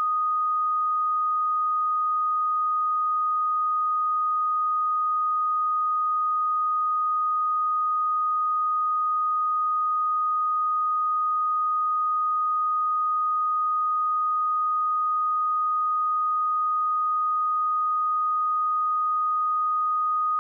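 A pure 1242 Hz sine-wave test tone, one steady unchanging pitch, with no other sound.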